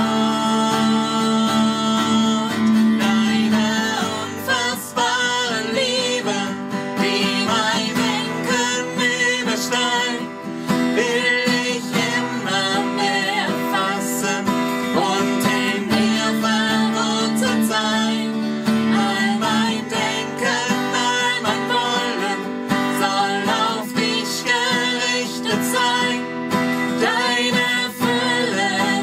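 A man and a woman singing a German worship song together to an acoustic guitar accompaniment.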